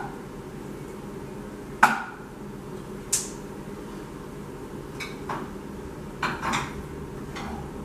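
Cookware clattering at a kitchen stove: a sharp knock of metal pots and pans about two seconds in, a high clink a second later, then several lighter clinks and knocks, over a steady low hum.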